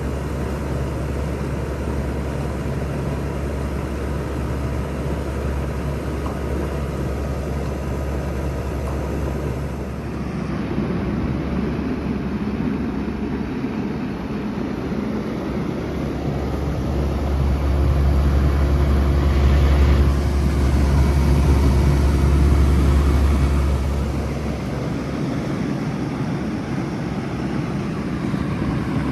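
2019 Bard two-stage wall-mount heat pump starting up in heat mode: a steady low hum with rushing air noise. It swells louder for several seconds past the middle, then settles back.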